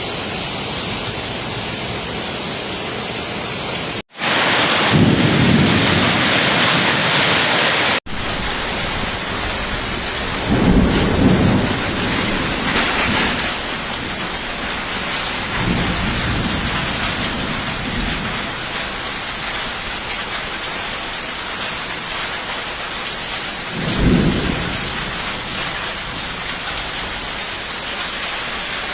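Heavy storm rain pouring in a steady hiss, with deep rumbles swelling up several times, the strongest about a quarter of the way in and again near the end. The sound breaks off abruptly twice in the first third, where one clip cuts to the next.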